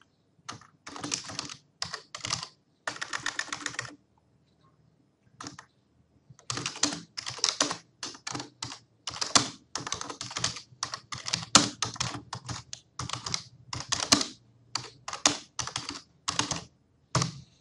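Typing on a computer keyboard. A few short runs of keystrokes come first, then a pause of about two seconds starting around four seconds in, then longer, nearly continuous runs of keystrokes.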